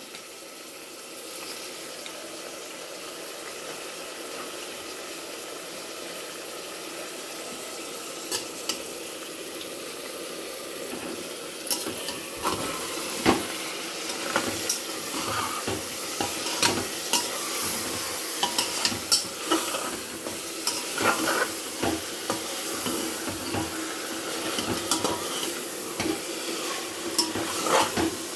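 Mutton, onions and whole spices frying in oil in an open pressure cooker, a steady sizzle as the meat is browned to dry off its water. A metal ladle stirs and scrapes against the pot, its clinks and knocks becoming frequent in the second half.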